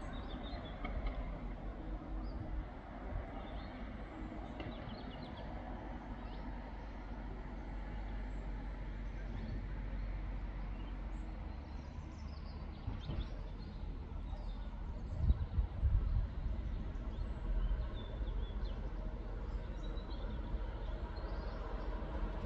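Outdoor ambience: a steady low rumble with birds chirping, and a few low thumps about fifteen seconds in.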